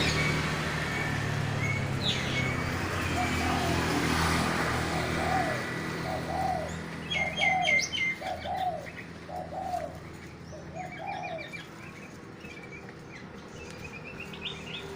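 Caged dove cooing a run of repeated, evenly spaced notes, about one a second, with short high chirps from songbirds mixed in.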